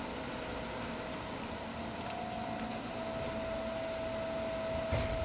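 Inside a Seibu Tamako Line electric train car (set 263F): a steady electrical hum with a high whine, and a single thump near the end.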